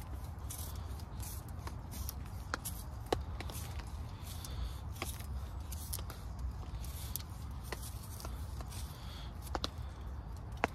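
A peeled wooden stick being twisted in a small handheld plastic pencil sharpener, the blade shaving off curls of wood for fire kindling in short repeated scraping strokes, with a few sharp clicks.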